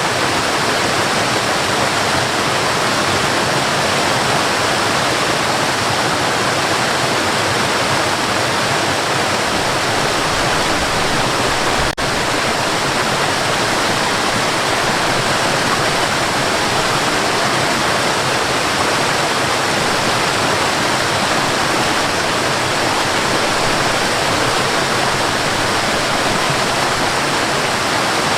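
Waterfall rushing steadily, an even roar of falling water, with a momentary dropout about twelve seconds in.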